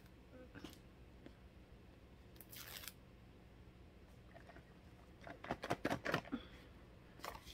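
A cardboard AirPods Pro box being handled and opened. A brief tearing, scraping noise comes about two and a half seconds in, then a louder run of crinkling and clicking around five to six seconds in, with a little more near the end.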